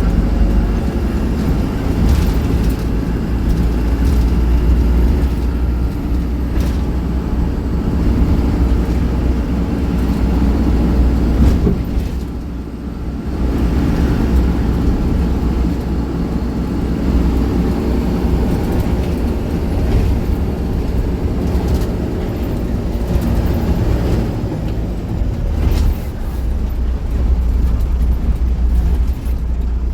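Small city bus driving, its engine and road noise making a steady low rumble that eases briefly about twelve seconds in, with a few light knocks.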